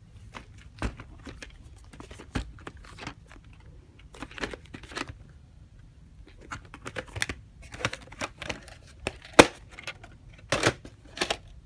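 A plastic clamshell VHS case being handled and opened to reach the cassette: scattered clicks, taps and rustles of plastic against fabric, with one sharp click about nine seconds in.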